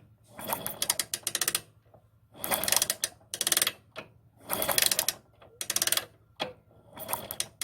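A motorcycle engine being turned over in about six short bursts for a spark test, each burst a run of rapid mechanical clicking with brief pauses between.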